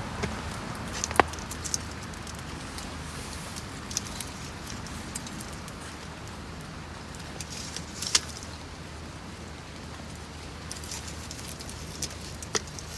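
Steady rain pattering on a tent or tarp, with a few sharp taps now and then, the loudest about a second in.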